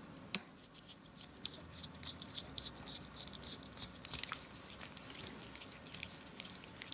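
Small screw being turned into the plastic assembly of a homemade Topre switch tester: a sharp click about a third of a second in, then a run of faint quick ticks and scrapes as the threads bite into the plastic.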